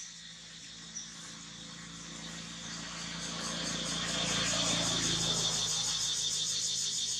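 Steady high-pitched insect chorus with a fast pulsing buzz, swelling louder about halfway through, with a couple of faint clicks near the start.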